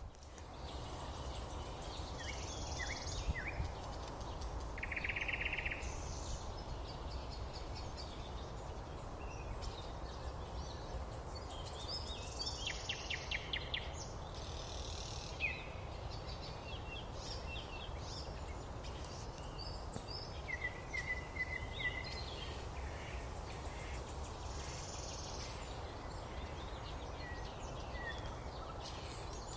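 Morning birdsong from several birds: scattered chirps, short whistled notes and fast trills, some near and some farther off, over a steady low rumble.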